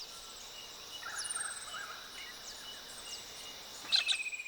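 Outdoor natural ambience: a steady high insect trill with scattered short, falling bird chirps, and a louder burst of bird calls about four seconds in.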